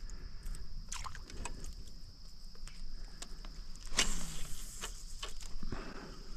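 A steady high insect drone, with scattered clicks and knocks of fishing gear handled in a kayak and a sharper, louder noise about four seconds in.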